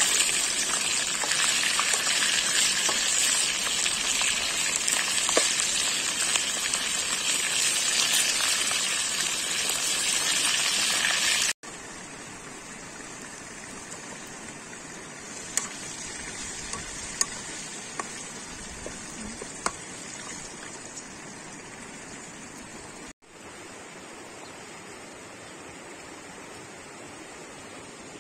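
Chicken wings frying in a pan of hot oil: a loud, steady sizzle with fine crackling. Partway through it cuts to a much quieter hiss with a few light metal clicks of spoons moving the fried wings and potatoes in a metal pan.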